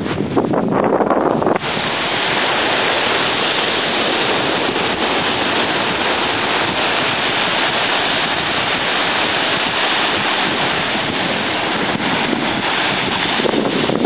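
Wind rushing over the microphone, mixed with small waves breaking and washing up a sandy beach: a loud, steady hiss that shifts abruptly about a second and a half in, then holds.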